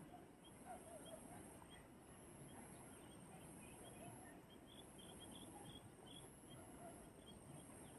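Near silence: faint outdoor ambience, with small high chirps repeating about every half second over a steady, thin high-pitched whine.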